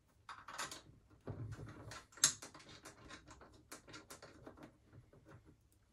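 Light, irregular clicks and small metal taps of a hand tool tightening the bolts that hold a power feed unit onto a milling machine table, with one sharper click a little over two seconds in.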